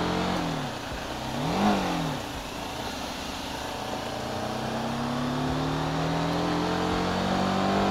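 TVS Apache RTR 310's single-cylinder engine pulling uphill in a low gear. Its revs blip up and down briefly about a second and a half in, then climb slowly and steadily as the bike accelerates, over a steady hiss of wind and road noise.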